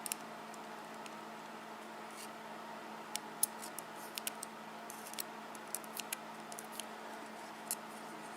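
Faint, scattered light clicks and ticks of small metal parts being handled while pins are taken out of a disassembled padlock core, over a low steady hum. The clicks come irregularly, most of them in the second half.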